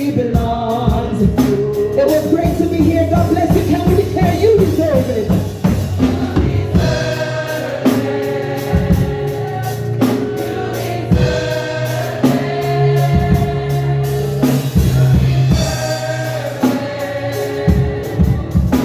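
Gospel song sung by a group of voices, with a band behind them: a steady bass line and a drum beat.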